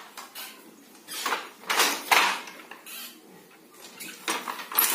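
Wooden handloom being worked: the shuttle and the beater clacking as the weft is laid and beaten in, several clattering strokes, some coming in pairs.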